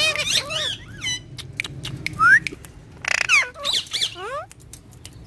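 Green ringneck parakeet chattering: a string of short squeaks and whistles that glide up and down, mixed with sharp clicks, with a rising whistle about two seconds in and a harsh squawk about three seconds in.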